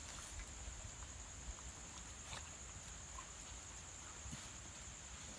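Faint night ambience: a steady high-pitched whine with a low rumble and a few scattered small clicks and rustles.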